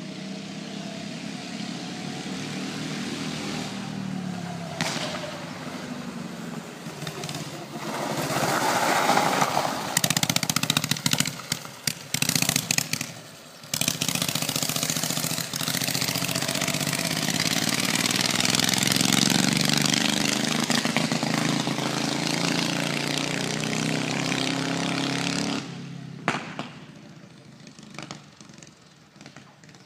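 Fuel-injected kart-cross engine running and revving as the kart drives around, its pitch rising and falling with the throttle. It is loudest and steadiest in the middle, breaks up briefly a few times, then drops off suddenly near the end, leaving it faint in the distance.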